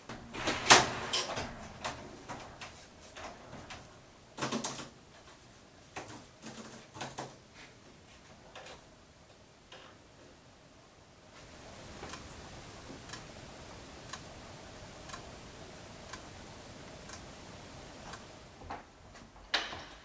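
Objects clattering and knocking as things are handled, loudest about a second in and again a few seconds later. Then, over a steady hiss, faint ticking about once a second, with another clatter near the end.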